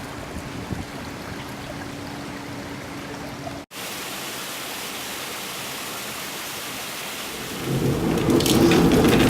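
Steady rush of water, broken by a sudden cut a little under four seconds in. Near the end a louder mechanical rumble with rattling comes in: the water-powered grist mill's millstones and gearing running.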